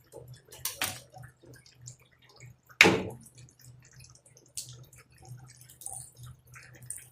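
Small clicks and knocks of washing-machine parts being handled during disassembly, with a double knock just under a second in and one loud, sharp knock about three seconds in, over a faint low hum.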